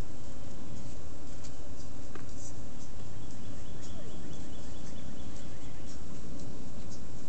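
Two puppies play-fighting, growling at each other as they wrestle, over a steady low background noise.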